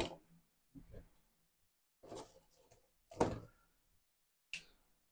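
Scattered knocks and clatters of objects being handled and set down, about five in all, with a sharp click at the start and a louder knock about three seconds in.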